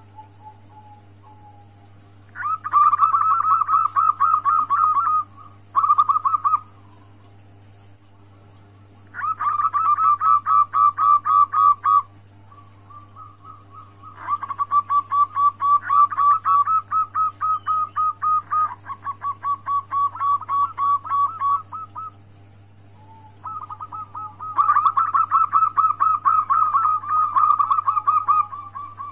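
Zebra dove (perkutut) cooing in bouts of rapid staccato notes a few seconds long, five bouts with short pauses between them, presented as a female's call to rouse a male. A faint high-pitched ticking, about four a second, runs underneath.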